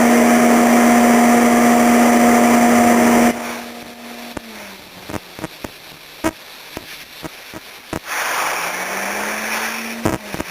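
CT520D welder/plasma cutter's cooling fan humming steadily, then dropping out about a third of the way in and winding down, followed by a series of sharp clicks, before the fan spins back up near the end. Plasma mode fails to strike a cutting arc: the fan sags when the torch touches the metal and only tiny sparks come.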